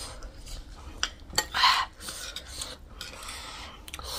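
Metal spoons scraping and clinking against ceramic plates as they scoop up wet puffed-rice chatpate, with a few sharp clinks.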